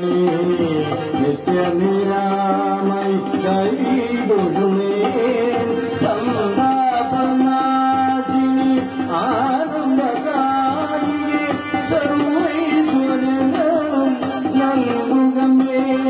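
Man singing a Krishna bhajan, his voice moving in long gliding melodic lines over held accompanying tones, with light percussion keeping a steady beat.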